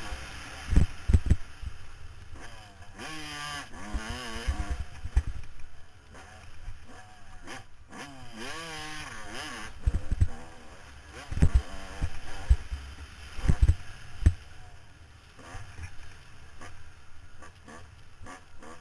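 Dirt bike engine revving up and down as it is ridden around a motocross track, its pitch rising and falling with the throttle. Heavy low thumps stand out several times.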